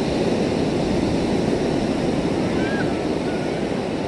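Ocean surf breaking on a rocky shore, a steady rushing wash, with wind on the microphone.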